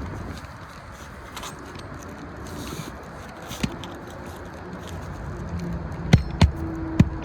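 Steady background rumble with a few faint clicks, then a quick series of sharp knocks starting about six seconds in, five or so within a second and a half.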